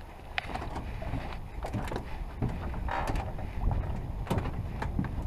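Footsteps on an aluminium gangway and floating dock, an irregular knock with each step, over a steady low rumble of wind on the microphone.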